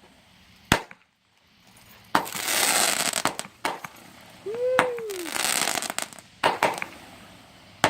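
Fireworks going off: a sharp bang, then two long runs of dense crackling, with more sharp bangs later on.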